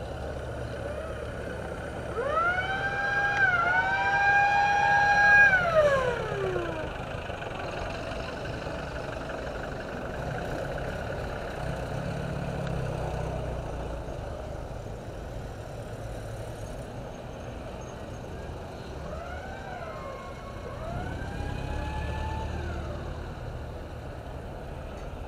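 A siren wails, rising, holding and then winding down slowly over about five seconds, and sounds again more faintly near the end in shorter rising and falling sweeps. Underneath runs the steady low rumble of a slow convoy of WWII-style military jeeps.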